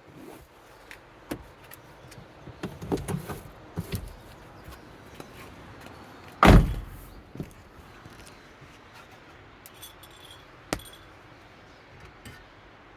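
Clicks and knocks of things being handled, then a kei car door shutting with one heavy thump about six and a half seconds in, followed by a few sharp clicks.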